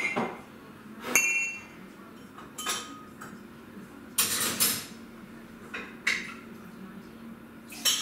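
Crockery being handled on a kitchen counter: mugs and dishes clinking and knocking together in a string of separate clinks, some with a short ring, and one longer clatter a little past the middle.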